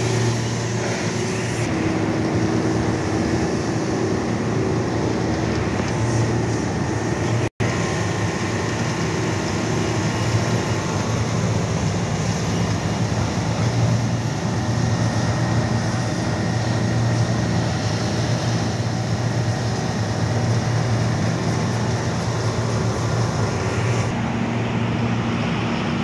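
Pressure washer running while its water jet sprays the coil fins of an air-conditioning unit during a coil cleaning: a steady motor hum under the hiss of the spray. It drops out for an instant about seven seconds in, and near the end gives way to road traffic.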